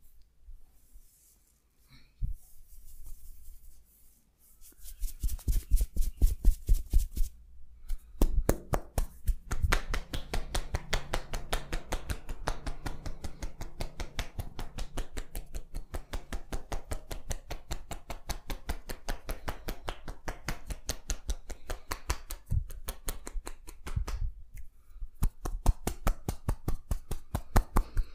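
Rapid rhythmic tapping of hands on a person's body in percussive massage, many slaps a second. It starts about five seconds in and pauses briefly twice.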